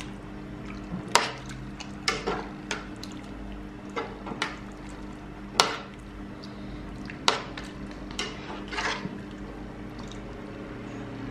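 A metal spoon stirring thick, wet rice and beans in a large aluminium pot. The spoon clinks and scrapes against the pot about ten times, with wet squelching in between, over a steady low hum.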